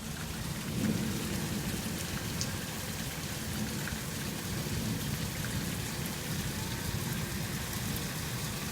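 Heavy rain pouring steadily in a thunderstorm: a dense, even hiss with a low rumble underneath.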